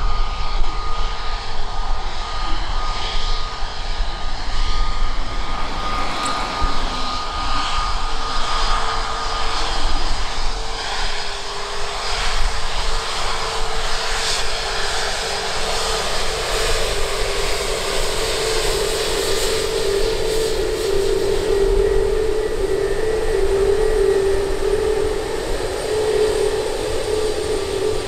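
Airbus A321neo's CFM LEAP-1A turbofan engines running at taxi power: a steady jet whine and rush. A low hum in the engine sound grows stronger in the second half.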